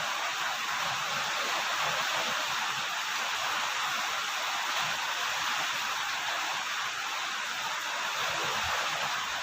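Steady rain falling, an even hiss with scattered drops patting underneath.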